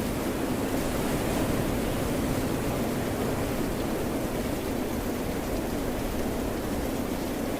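Steady rushing noise of rain mixed with ocean surf, even in level with no single wave breaks standing out.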